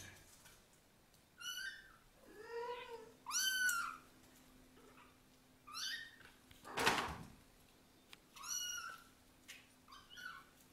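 Young kittens mewing: about six short, high-pitched mews spread through, one of them lower and longer. About seven seconds in there is a brief burst of noise.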